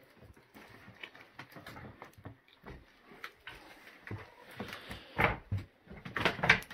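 Footsteps crunching and knocking over loose rubble, plaster and broken floorboards in an uneven, irregular series, with the loudest steps about five seconds in and just before the end.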